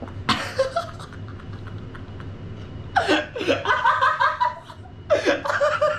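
Several young men laughing hard in bursts: a short outburst at the start, then louder fits of laughter about three seconds in and again about five seconds in.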